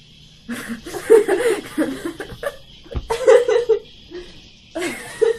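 Two teenage girls laughing in several bursts, with a short bump about three seconds in.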